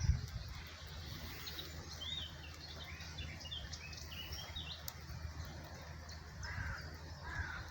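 Outdoor birdsong: many short chirps, with a few lower calls near the end, over a faint steady low rumble.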